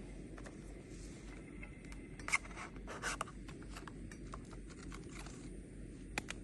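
Faint scraping and light clicks of things being handled, with a couple of louder scrapes about two and three seconds in, over a steady low rumble.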